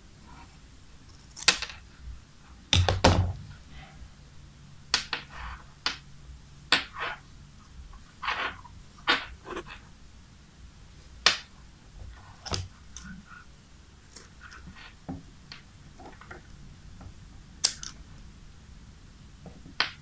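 Scissors snipping the loose copper strands of a frayed MagSafe cable's braided shield: a series of short, sharp snips at irregular intervals.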